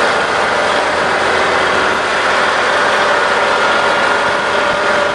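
Heavy diesel engine idling steadily, with a steady whine over the engine noise.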